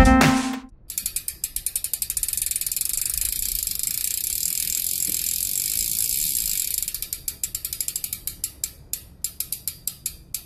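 Mountain bike rear freehub ratcheting as the wheel spins freely. The clicks quicken into a steady buzz, then slow to separate ticks over the last few seconds as the wheel runs down. A bit of music cuts off at the very start.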